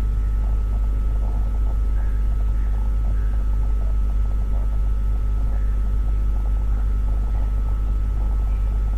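Steady low hum with a faint steady high tone above it, even in level throughout: background hum on the recording, with no other sound.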